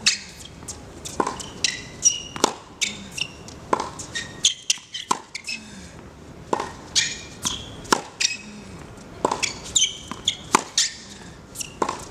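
Tennis rally on a hard court: repeated sharp pops of the ball off the racket strings and its bounces on the court, about two or three knocks a second, with short high squeaks of shoes.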